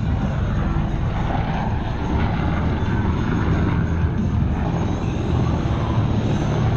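Military aircraft flying low overhead, a loud steady rumble.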